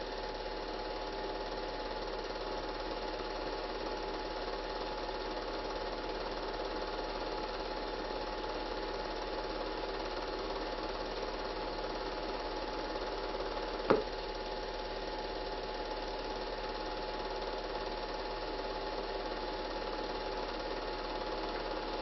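Steady mechanical whir of a cine film projector running, holding several constant pitches over a low mains hum, with a single click about 14 seconds in.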